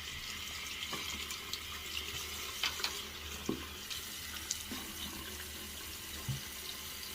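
Tap running steadily into a sink, with a few small clicks and knocks from things moving in the basin.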